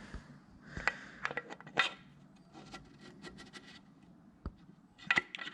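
Scattered small metal clicks, taps and light scraping: a piston ring being pushed down square in the cylinder bore of a Honda D-series block with a piston, ready for an end-gap check.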